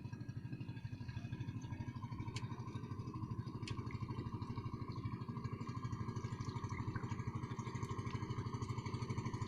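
Small engine running steadily at an even speed, with a fast regular pulse.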